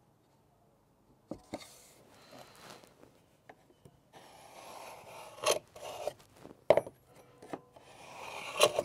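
Scraping and rubbing of wood being handled, starting about a second and a half in, broken by a few sharp knocks, the loudest near the end.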